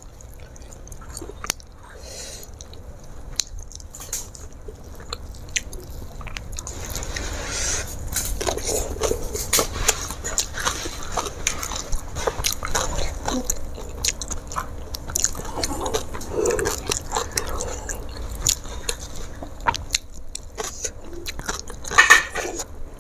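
A person eating close to the microphone: chewing and biting fried fish and rice eaten by hand, with many short mouth clicks that grow denser partway through.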